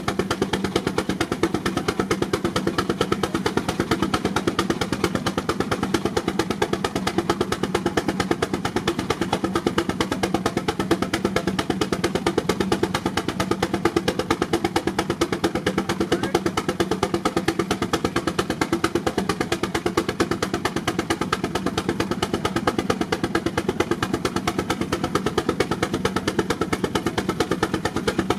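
Steam traction engine working steadily under heavy load on a Prony brake dynamometer, its exhaust beating in a rapid, even rhythm that holds steady throughout.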